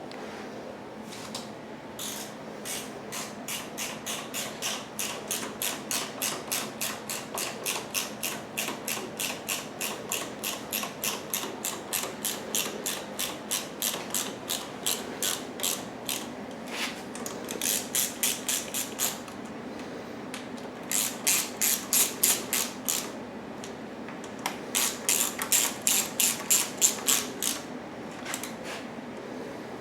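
Hand ratchet clicking as a fastener is tightened: a long steady run of about three clicks a second, then three shorter, quicker and louder runs of clicks.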